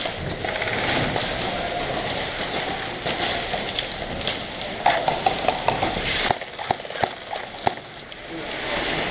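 Steady crackling rustle of a player's clothing and gear on the body-worn camera's microphone while moving with an airsoft rifle, then a run of about ten sharp clicks a little past the middle.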